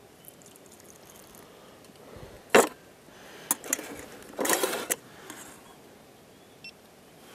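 Stainless steel camping cookware clinking. There is a sharp clink about two and a half seconds in, a couple of light knocks, then a short clatter of a spoon working flour and water in a steel pot.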